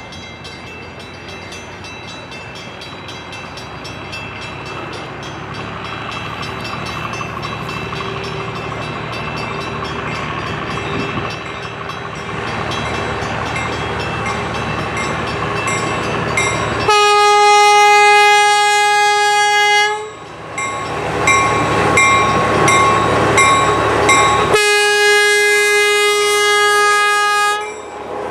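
GE 45-ton diesel locomotive approaching, its engine growing steadily louder, then sounding its horn in two long blasts of about three seconds each, roughly five seconds apart.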